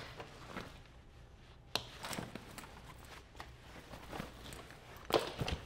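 Handling noise of nylon fabric and webbing: a paramotor float pack being lifted and moved against the harness, with rustling, light knocks and clicks. There is a sharp tap just under two seconds in, and the loudest clatter comes near the end.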